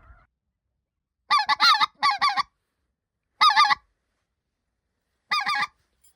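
Goose calling in four short bursts of high, yodelling double notes, loud and close, of the kind used to call in specklebellies (white-fronted geese).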